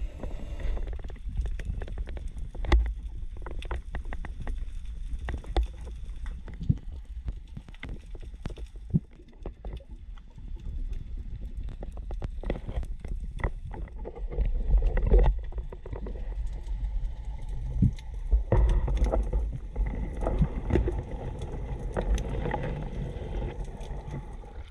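Muffled underwater sound heard through a waterproof action-camera housing: a low rumble of moving water with scattered clicks and knocks, swelling louder twice in the second half.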